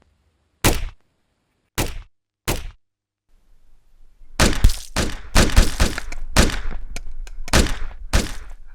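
A series of sharp knocks and cracks: three single hits spaced about a second apart, then, after a gap, a rapid run of a dozen or so close together.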